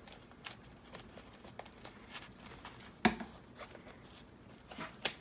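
Small scissors snipping through black tape and paper, with faint paper rustling and small clicks, and one sharper knock about three seconds in.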